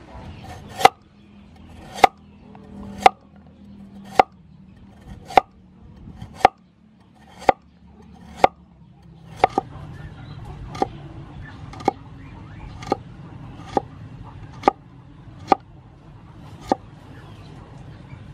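Large kitchen knife slicing a carrot on a wooden cutting board: sharp knocks of the blade hitting the board, about one a second, evenly paced.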